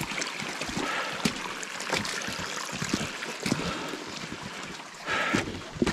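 Footsteps and small knocks of a hiker walking on a stony mountain path, over a steady rushing hiss.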